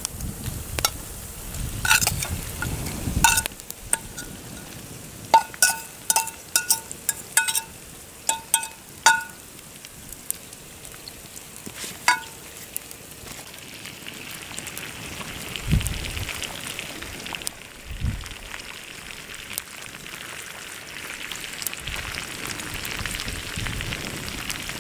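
Small metallic clinks, a dozen or so at irregular intervals and bunched in quick succession about five to nine seconds in, over a steady hiss that grows stronger in the second half, with two dull thumps near the end.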